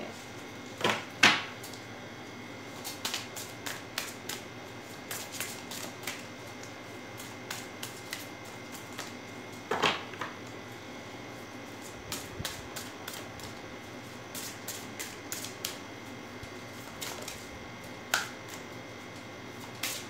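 A deck of oracle cards being shuffled by hand, the cards clicking and snapping against each other in an irregular patter. There are louder snaps twice about a second in and once near the middle.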